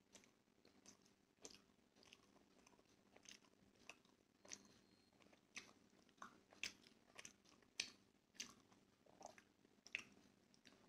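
Faint close-up mouth sounds of a person eating steamed momos: chewing with short wet lip smacks and clicks at irregular intervals, about one or two a second, a few louder ones in the second half.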